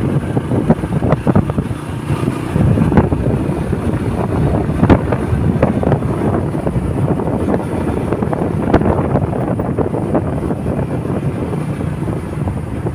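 Wind buffeting the microphone of a moving motorcycle in uneven gusts, with the motorcycle's engine running underneath.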